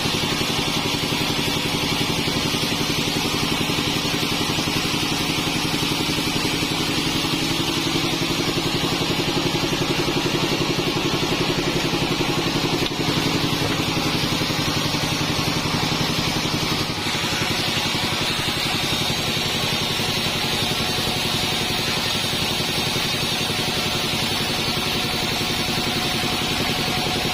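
Band sawmill running, a 48-inch bandsaw with a steady machine drone under a bright, hissing blade noise, with a slight change in tone about two-thirds of the way through.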